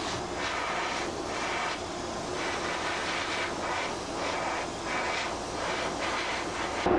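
Gravity-feed airbrush spraying translucent lure paint: a steady hiss of air that swells and dips every second or so as it is worked.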